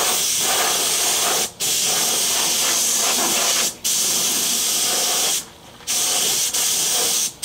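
Gravity-feed air spray gun spraying onto a truck door: a steady hiss in four long passes, cut off briefly each time the trigger is released.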